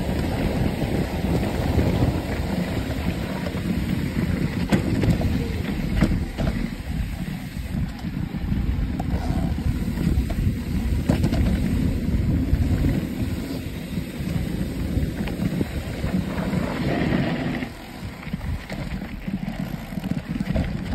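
Wind buffeting the microphone over the rumble and rattle of a mountain bike rolling down a dirt trail, with scattered sharp clicks and knocks from the bike and trail surface.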